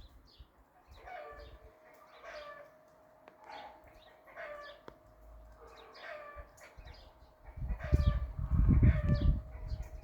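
Chickens calling, a pitched call repeated about once a second. A loud low rumble joins in for the last couple of seconds.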